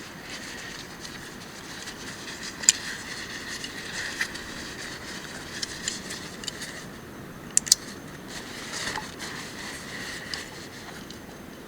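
Campfire crackling over a steady hiss, with a few sharp pops: one loud pop about a third of the way in and a quick pair of pops about two-thirds in.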